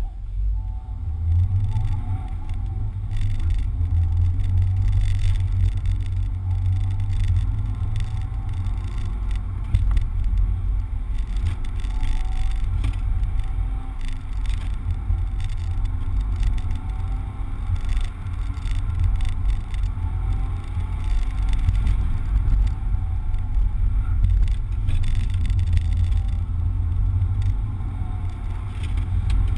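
Toyota Corolla with a manual gearbox driven hard through an autocross course, heard from inside the cabin: a heavy low road and engine rumble, with the engine note rising and falling as the driver works the throttle. It builds up about a second in as the car gets going.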